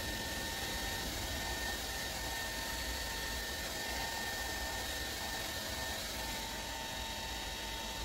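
Hand-held hair dryer running steadily, an even whirring hiss with a faint steady whine.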